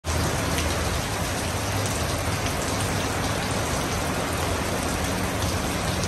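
Heavy rain pouring steadily onto wet pavement.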